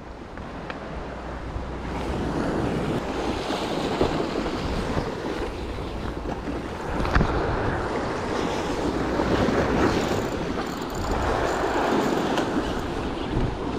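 Sea surf washing against the rocks in several swelling surges, with wind buffeting the microphone. There is one short knock about seven seconds in.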